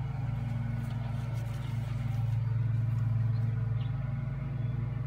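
Steady low hum of a running motor, holding one even pitch.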